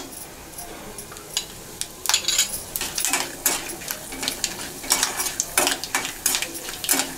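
Metal slotted spatula scraping and clinking against a non-stick kadai as peanuts, dried red chillies and tempering spices are stirred in hot oil, over a faint sizzle. The first couple of seconds are fairly quiet, then the stirring strokes come quickly and irregularly.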